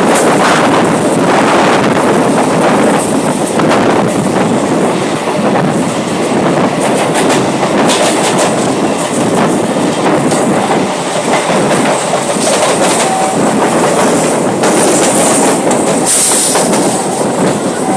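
Indian local train running past at close range, its wheels clattering over the rail joints in a continuous loud rumble, with a brief high squeal near the end.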